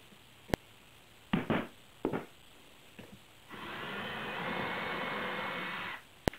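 Cordless drill running steadily for about two and a half seconds, boring a pilot hole through 1/16-inch aluminium angle into an oak strip. Before it come a few sharp clicks and light knocks of tools being handled, and another click near the end.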